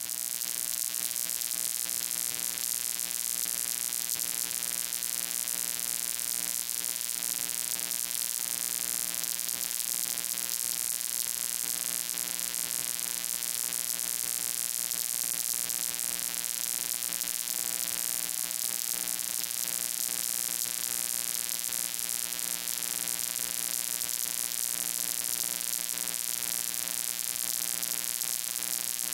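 Steady electrical hum with hiss over it: mains hum and static on the audio line, with no voice coming through.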